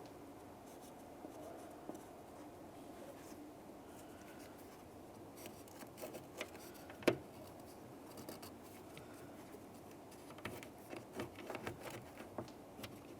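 Faint scratching of a line being drawn along the edge of the door hinge to mark its position, with a single sharp click about seven seconds in and a run of light taps and scrapes near the end.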